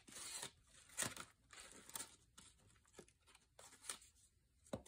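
Paper and card being handled: a short rustle at the start, then scattered light taps and clicks, the sharpest about a second in and another near the end.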